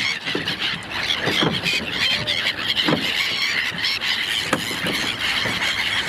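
A large flock of gulls calling, a dense chorus of many overlapping high cries, as the birds crowd in for food being thrown to them.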